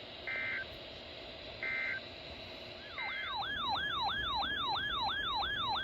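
Emergency alert tones. First come three short bursts of digital data tone, like a SAME alert header. Then a siren-like alert tone starts, sweeping rapidly up and down about three times a second, which heralds a new warning message.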